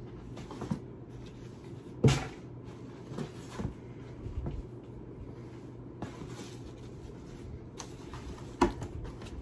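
Things being handled and set down: a sharp knock about two seconds in and another near the end, with light clicks and rustling between them.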